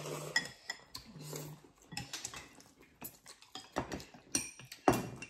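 Chopsticks and spoons tapping and clinking against ceramic bowls as several people eat noodle soup, with scattered light clicks throughout and a busier stretch near the end.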